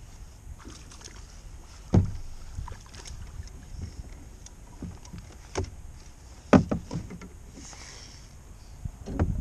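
Sharp knocks and thumps of fishing gear against a small boat: a loud one about two seconds in, a pair near seven seconds, and a few fainter ones between. A brief soft hiss comes near the end.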